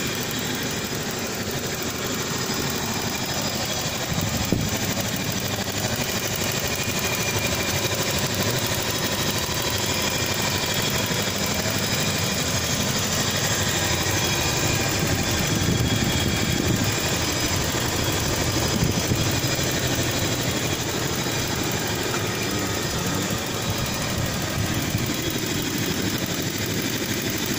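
2004 Toyota Kijang Kapsul engine idling steadily, heard close up in the open engine bay, with a single sharp knock about four seconds in.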